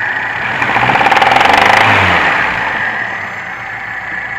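VAZ-2105 belt-driven four-cylinder engine blipped up from idle and back, a rapid knock coming in as the revs rise and easing as they drop. The knock sits around the cylinder head over cylinder 3 and vanishes when that cylinder's plug is disconnected; its cause after the rebuild is unknown to the owner.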